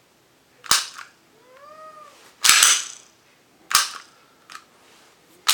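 Sharp metallic clicks from an unloaded SIG Sauer P320 pistol as its upgraded trigger is dry-fired and the action is worked to reset it. There are four clicks a second or more apart, and the second is longer and rasping.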